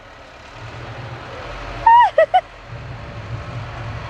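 A baby's short high-pitched squeal with falling pitch about two seconds in, followed by two brief chirps, over a steady low rumble that grows louder toward the end.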